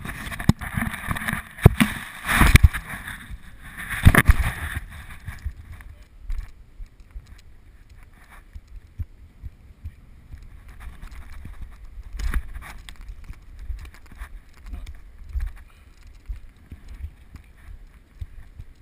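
Handling noise on a GoPro sealed in its waterproof housing: rubbing and sharp knocks against the case for the first five seconds or so, loudest about two and four seconds in. After that comes a quieter, muffled low rumble with scattered faint knocks.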